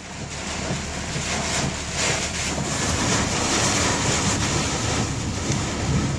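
Storm wind blowing hard across the microphone: a dense, steady rush of noise that swells slightly about two seconds in.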